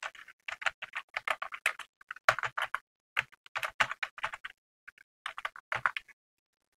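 Typing on a computer keyboard: quick runs of keystroke clicks with brief pauses, stopping about six seconds in.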